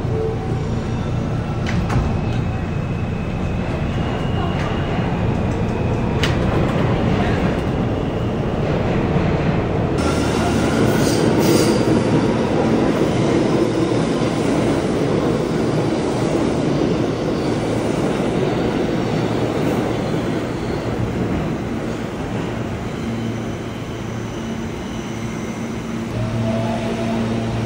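New York City subway train in an underground station: a steady rumble and hiss, with a few sharp clicks and brief high squeals in the first several seconds.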